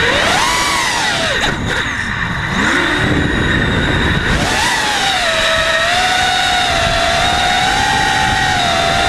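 Racing quadcopter's brushless motors whining. The pitch swoops up and down with throttle for the first few seconds, then holds a steady high whine from about five seconds in.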